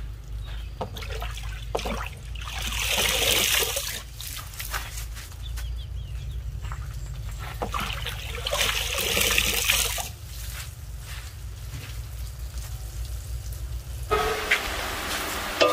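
Water trickling and splashing in two surges of a second or two each, with small clicks and knocks between them. Music starts near the end.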